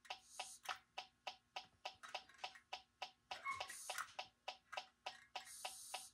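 Funtin Home FT-HG-03 handheld gas detector's audible alarm ticking faintly and evenly, about four clicks a second. Its alarm rate rises with gas concentration, so the ticking signals gas at the probe.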